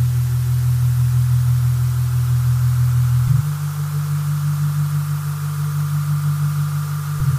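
Synthesized low electronic drone over a steady static-like hiss, the sound of an animated logo intro; the drone shifts to a slightly higher pitch about three seconds in.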